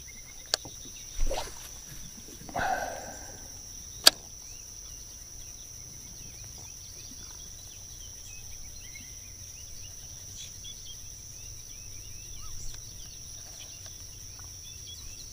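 Steady high-pitched insect drone, with a few sharp clicks and a soft knock within the first few seconds.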